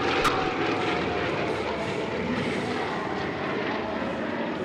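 Piston engines of Sukhoi aerobatic planes, nine-cylinder Vedeneyev M14P radials, droning steadily as the planes climb vertically, slowly fading.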